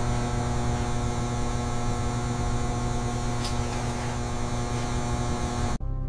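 A steady, dense droning hum with hiss and many held tones, which cuts off abruptly near the end; softer music starts right after.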